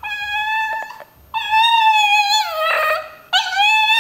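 A small dog howling in long, drawn-out "ma-ma"-like notes, the dog's trick of "talking". There are three howls; the second slides down in pitch at its end.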